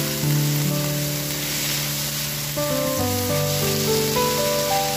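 Diced onion and red bell pepper sizzling steadily as they fry in oil in a pan, under background music.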